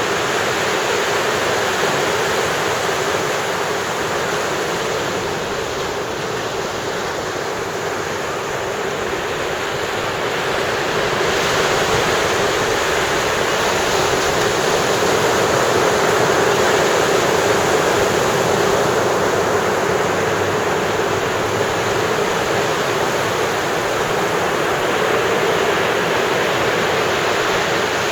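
Sea surf washing onto a beach: a continuous rush of breaking waves that eases slightly a few seconds in and builds again around the middle.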